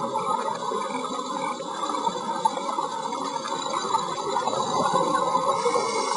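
Steady crackling underwater noise picked up by a camera filming on a reef, with no single distinct event standing out.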